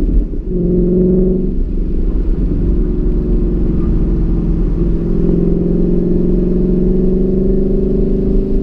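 2015 Mustang GT's 5.0-litre V8 running hard on track, heard from inside the cabin. Its note dips briefly about half a second in and is weaker for a few seconds, then pulls strong and steady through the second half.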